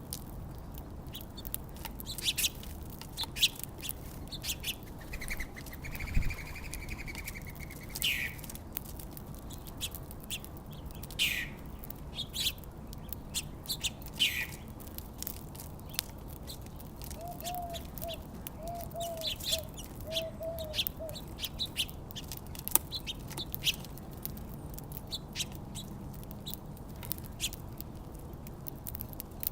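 Small birds at a backyard feeder chirping. A short trill comes a few seconds in, then several quick downward-sweeping calls, and later a run of short lower notes. Many small clicks run throughout.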